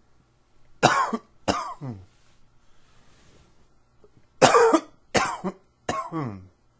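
A man's allergy cough: two coughs, a pause, then three more coughs in quick succession, each ending in a falling voiced tail.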